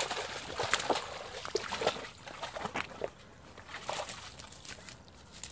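A golden retriever puppy's paws splashing and sloshing through shallow stream water: a quick string of splashes over the first three seconds, and another short cluster about four seconds in as it climbs out onto the bank.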